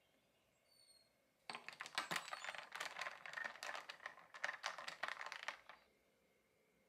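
A glass straw stirring iced coffee in a glass, with ice cubes clinking and rattling against the glass for about four seconds before stopping abruptly.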